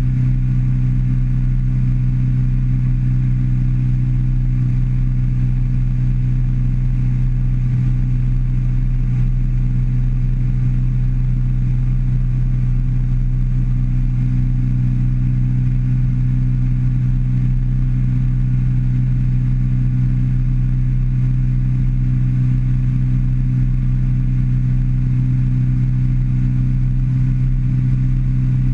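150 hp outboard motor running steadily at planing speed: a constant low drone that holds one pitch without rising or falling.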